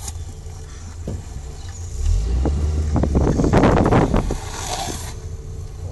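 Steady wind and road rumble. Past the midpoint comes a loud scraping burst of a little over a second: longboard wheels sliding sideways across the asphalt as the rider puts a hand down for a slide.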